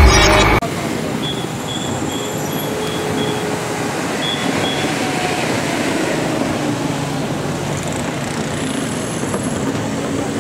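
Intro music cutting off abruptly just after the start, then steady vehicle noise of buses running in a car park. A faint series of short high beeps comes in the first few seconds.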